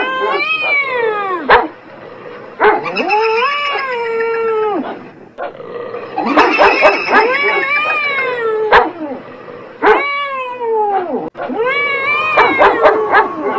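Cats yowling and meowing in long calls that rise and fall, one after another, with a dog's short, sharp barks in between.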